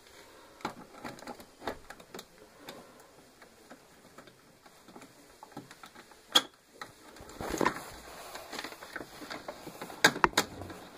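Scattered light clicks and taps of small hard objects being handled, with one sharp click about six seconds in, a brief rustle, and a quick cluster of sharp clicks near the end.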